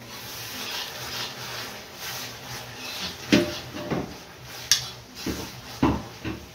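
A ladle stirring and scraping spice paste in a wok, then knocking against the wok about six times in the second half.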